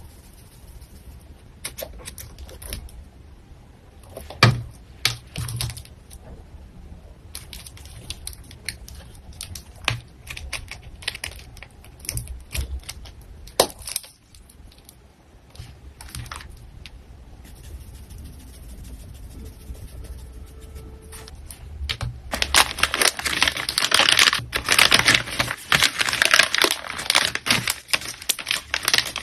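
Small items and packaging being handled while an order is packed: scattered light taps and clicks, then dense, louder crinkling of packing material from about two-thirds of the way through.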